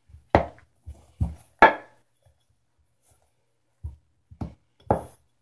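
Hands squeezing and mixing pie crust dough in a stainless steel bowl: short dull thumps, a few close together at first, a pause, then several more near the end.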